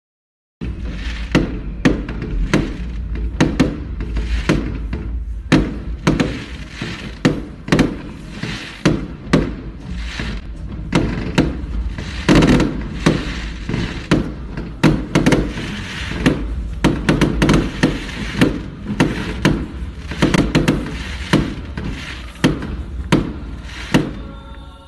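Aerial fireworks bursting overhead in rapid, irregular succession: many sharp bangs and crackles, several a second, over a steady low rumble. It starts suddenly about half a second in.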